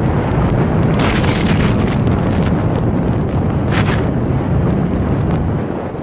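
Strong blizzard wind buffeting the microphone: a steady low rumble, with brief hissier gusts about a second in and again near four seconds.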